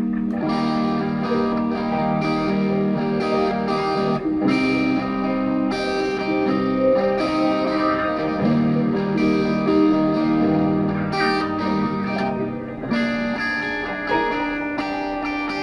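Instrumental music: sustained, layered chords whose notes shift every second or so.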